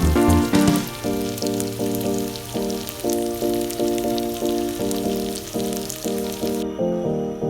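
Food sizzling and crackling in a frying pan under background music with a steady beat of short pitched notes. The sizzle drops out near the end, leaving only the music.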